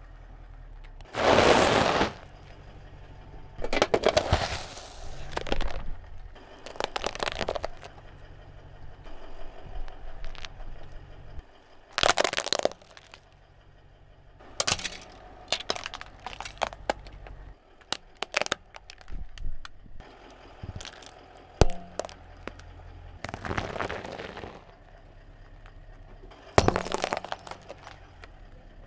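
A car tyre rolling over and crushing small plastic objects, among them plastic hair curlers and a calculator: a string of separate sharp cracks and crunches, with a low steady hum under the first half.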